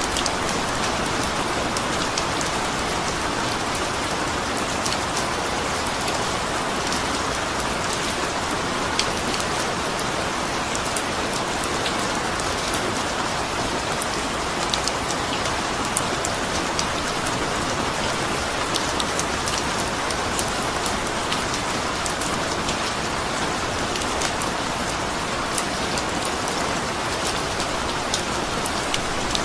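Steady rain falling, a dense even hiss with many small drop ticks on a surface.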